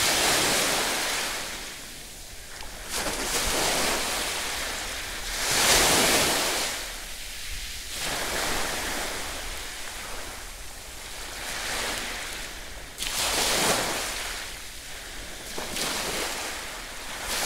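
Sea waves washing in, swelling and ebbing every few seconds, loudest about six seconds in and again near thirteen seconds in.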